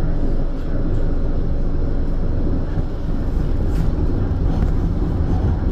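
Blackpool tram running along its track, heard from inside the passenger car: a steady low rumble of wheels and running gear.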